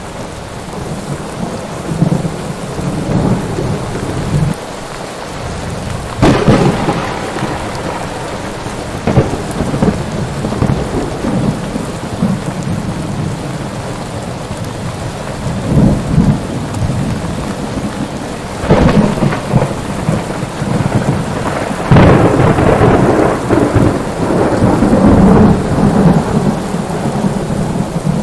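Thunderstorm: rain falling steadily, with thunder peals about six seconds in, around sixteen and nineteen seconds, and a long rumble from about twenty-two to twenty-six seconds, the loudest part.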